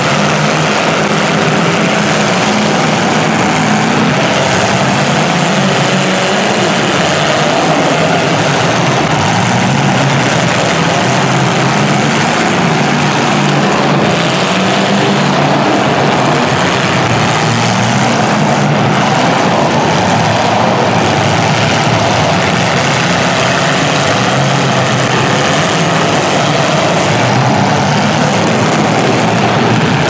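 Several demolition derby cars' engines running and revving hard together, loud and continuous.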